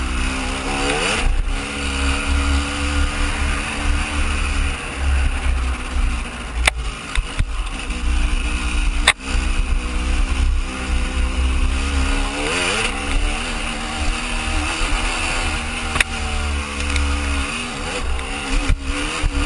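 Dirt bike engine running under load up a rocky trail, its revs rising and dropping with the throttle, over a heavy low rumble, with three sharp knocks along the way.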